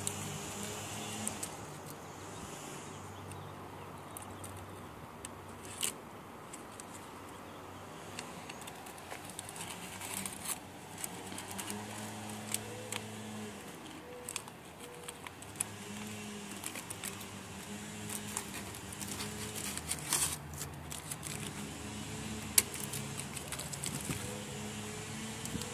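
Scattered clicks and crinkles of blue painter's tape being torn off a roll and pressed onto a car's grille trim, over a faint low drone.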